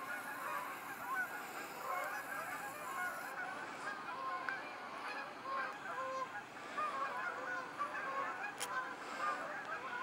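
A large flock of geese flying over, honking continuously, with many calls overlapping.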